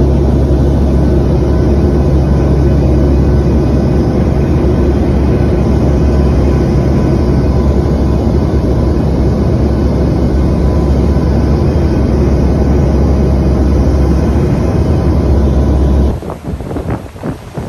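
Steady cabin drone of an airplane in flight, heard from inside by a window seat: a strong low hum with a couple of faint steady whine tones above it. It cuts off suddenly near the end, giving way to gusty wind on the microphone with surf.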